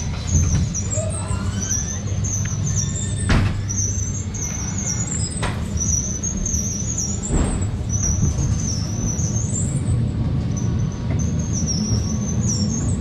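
Ghost train ride car rumbling along its track, with a high wavering squeal throughout and three sharp knocks spread across the middle.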